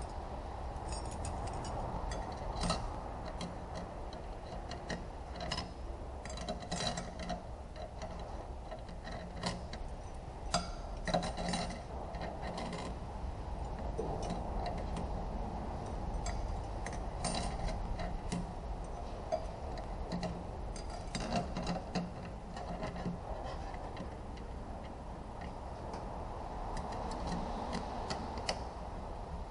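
Irregular light metallic clicks and clinks from transmission parts and hand tools being handled, over a steady low hum.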